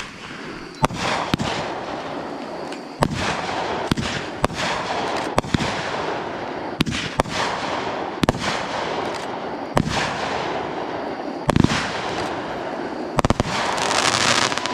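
Aerial fireworks going off: more than a dozen sharp bangs, irregularly spaced, over a continuous crackling hiss that swells near the end.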